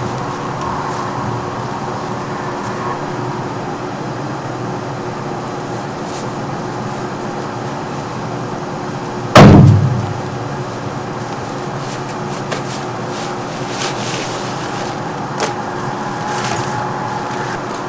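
A loud, short thud about halfway through, a heavy bag dropped onto a wooden deck, over a steady low hum. A few light clicks and knocks follow as gear is handled.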